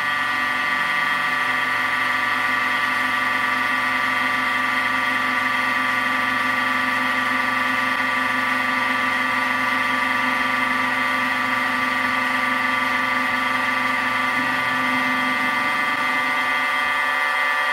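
Mini milling machine with a 1 HP servo motor and toothed belt drive running a 3-inch fly cutter through a single 10-thousandths pass across 6061 aluminium: a steady, even whine of several held tones, with a lower hum dropping away near the end.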